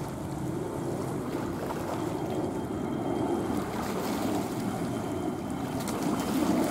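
Jet engine noise from an Airbus A320-216's twin CFM56 turbofans at climb power: a steady low roar growing louder as the airliner passes overhead after take-off, with a faint high whine about two seconds in.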